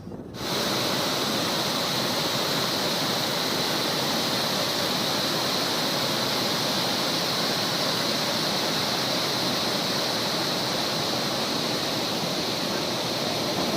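Monsoon-swollen Jaldhaka river rushing below the bridge, a steady, even roar of water that begins about half a second in.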